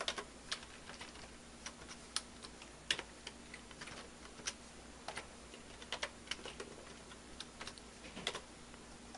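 Computer keyboard keys tapped in an irregular run of single clicks as someone types, with a faint steady hum underneath.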